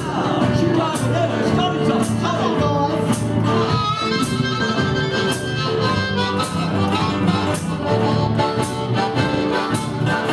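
A blues band playing live, with two blues harmonicas leading over resophonic and electric guitars and a drum kit keeping a steady beat. The harmonicas take over with long held notes from about four seconds in.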